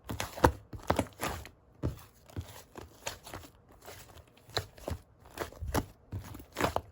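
Slime being squeezed and poked by hand, giving irregular sticky pops and crackles, two or three a second.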